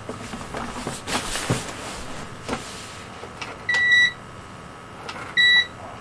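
Rustling and clicks from a power cord being pulled out and handled, then two short electronic beeps about one and a half seconds apart, each a single high steady tone.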